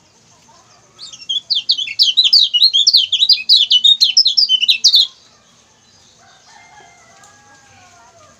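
A kecial kuning (lemon-bellied white-eye) giving a loud, rapid burst of high chirping notes, many to the second, starting about a second in and lasting about four seconds. Faint lower whistled glides follow near the end.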